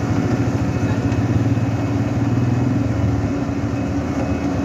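A motor vehicle engine running steadily, with a fast, even low throb.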